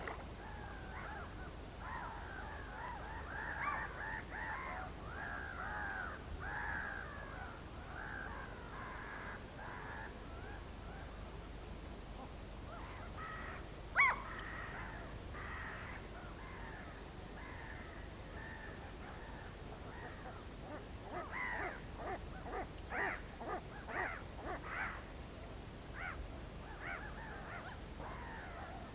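A flock of whooper swans calling with overlapping honks, thick at first, then in short repeated calls in the last third. There is a single sharp click about halfway through.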